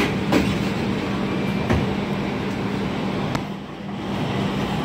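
Interior of a TTC streetcar at a stop: the folding doors close with a few sharp mechanical clunks over a steady hum from the car's equipment.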